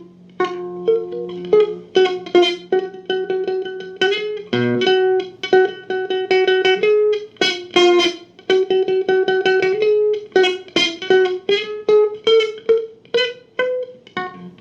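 Guitar played by plucking, a quick run of notes picked over and over on much the same pitch, with a few higher notes in between.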